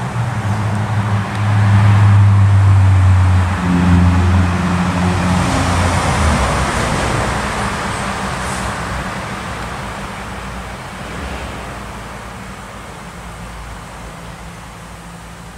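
A motor vehicle driving past: a low engine drone for the first six seconds or so, then a hiss that fades away slowly.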